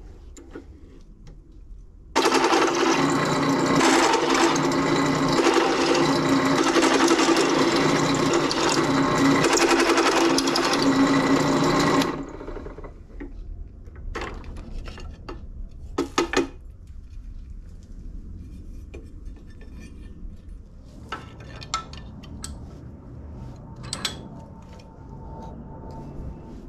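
Benchtop drill press running and cutting through steel angle with a step drill bit. It starts about two seconds in and stops suddenly about ten seconds later. A few light metallic clicks and knocks follow.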